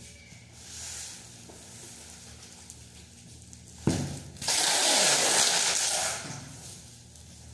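Plastic stretch film pulled off its roll and wrapped around a cardboard box. A knock on the box comes about four seconds in, then about two seconds of loud ripping hiss as the film is drawn off.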